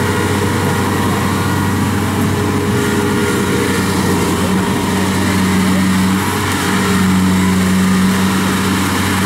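Kubota DC70 rice combine harvester working in the paddy, its diesel engine and threshing machinery running with a steady, even drone and a low hum. It grows slightly louder a little past the middle.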